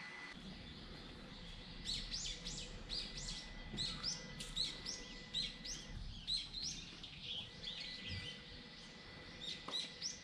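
Small songbirds chirping: a quick run of short, sharp high chirps, about two or three a second, starting about two seconds in, pausing, then a couple more near the end.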